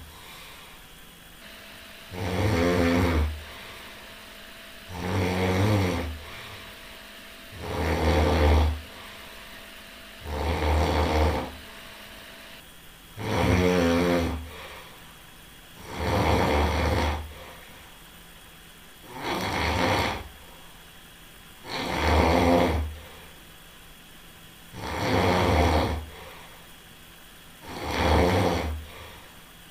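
A sleeping person snoring in a steady rhythm: about ten snores, one roughly every three seconds, each lasting about a second, with quieter pauses between.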